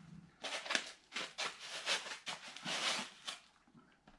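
Rustling and scraping of laptop packaging being handled: a fabric sleeve and a foam packing insert pulled apart and lifted, in a series of short, irregular strokes.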